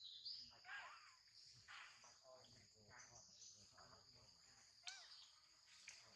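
Faint, steady, high-pitched drone of insects in the forest, with a few short gliding calls about one second and five seconds in.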